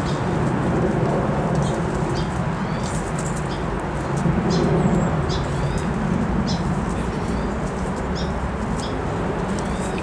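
Small songbirds giving many short, high chirps scattered through, over a louder steady low rumble.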